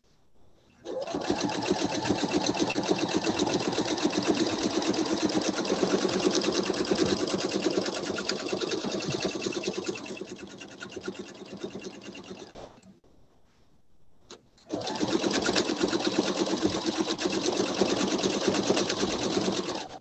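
Pfaff sewing machine stitching fast during free-motion quilting, the needle going up and down in a rapid rattle. It starts about a second in, slows and stops about two-thirds of the way through, then starts again for a second run of about five seconds that stops just before the end.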